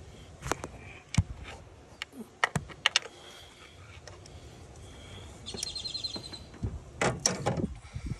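A bird chirps now and then, with a short rapid trill about five and a half seconds in, over scattered sharp clicks and knocks from tools being handled, which bunch together near the end.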